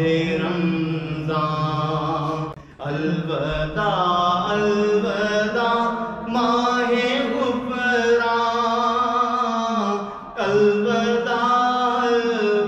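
A man singing a naat solo and unaccompanied, in long drawn-out phrases with wavering held notes. He breaks briefly for breath about two and a half seconds and ten seconds in.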